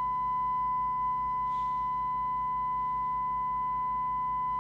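Steady 1 kHz test tone from the signal generator, received by the Jesan PRO8000 FM CB radio and heard from its loudspeaker with the squelch open, over a low hum.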